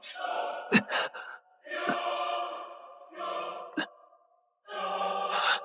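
Dramatic background music with sustained choir-like voices, cut by a few sharp hits, the strongest about a second in and near four seconds in. The music breaks off briefly twice.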